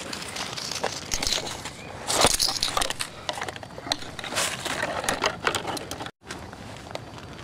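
Bare twigs and branches brushing, scraping and snapping against a handheld camera as it is pushed through a shrub: an irregular string of sharp clicks and rustles. The sound drops out completely for an instant about six seconds in.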